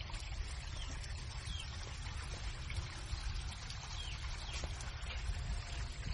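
Water splashing and trickling with many small crackling splashes, a low rumble underneath, and a few short high chirps.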